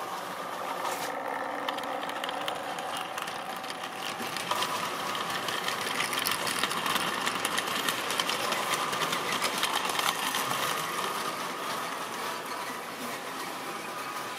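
Tri-ang model trains running on the track: a steady electric-motor whirr with rapid clicking of small wheels over the rail joints. It swells as a long train of tank wagons passes close by, then eases off.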